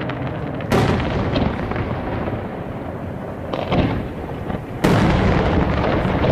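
Aerial fireworks shells bursting in the sky: a sharp bang about a second in and another near five seconds in, a smaller bang between them, and a continuous low rumble and crackle between the bursts.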